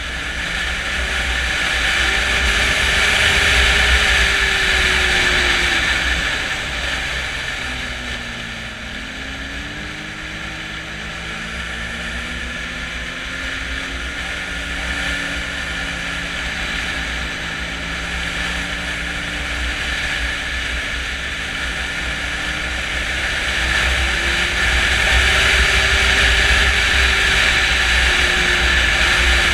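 Snowmobile engine running under way, its pitch climbing and falling with the throttle. It is loudest a few seconds in and again near the end, with a dip in between.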